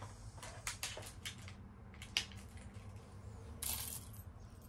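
Faint clicks and clinks of costume jewelry being handled and set down on a cloth-covered surface, with one sharper click about two seconds in and a brief rustle a little later.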